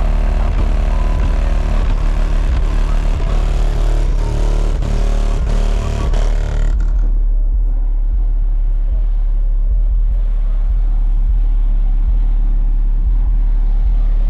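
Audio Ace 15-inch subwoofers walled in a Dodge Dakota playing a rap track very loud, heard from outside the truck, with deep bass dominating. About seven seconds in, the upper part of the music drops out, leaving mostly the low bass.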